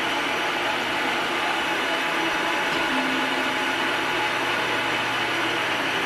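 Bladeless fan running steadily: a constant rush of air from the motor and impeller in its base.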